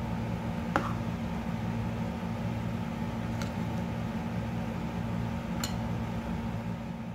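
Idli batter being beaten by hand in a glass bowl, with three light clicks against the glass, over a steady low hum.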